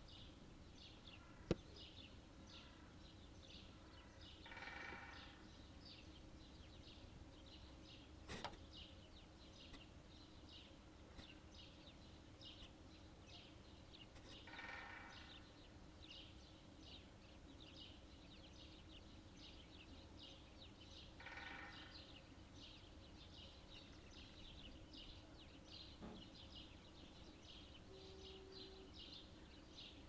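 Common snipe drumming: the bleating hum of its outer tail feathers in a display dive, heard three times, each just under a second, about seven to ten seconds apart. Many small birds chirp throughout, and there is one sharp click about a second and a half in.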